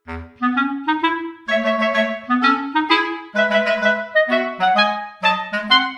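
Background music: a light melody of short, separate notes in a steady rhythm, restarting after a brief break right at the start.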